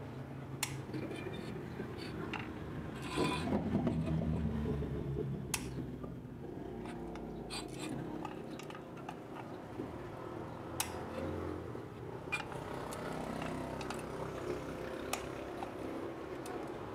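Scattered sharp metal clicks and scraping of locking pliers and a screwdriver working at a seized, rusted screw on an LPG stove burner top.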